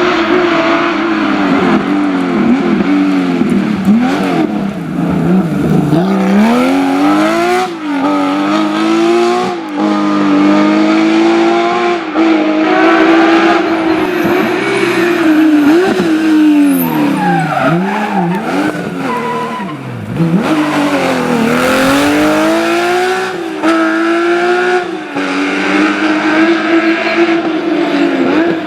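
Historic rally cars driven flat out on a special stage: the engines rev up through the gears again and again, with sharp drops in pitch on each lift and downshift.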